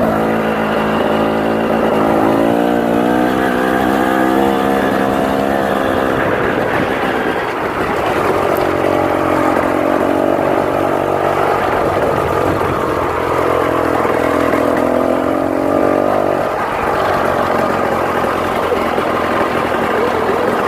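KTM 250 XC two-stroke dirt bike engine running under riding, revving up and down: the pitch climbs over the first few seconds, drops about seven seconds in, then climbs and falls again later.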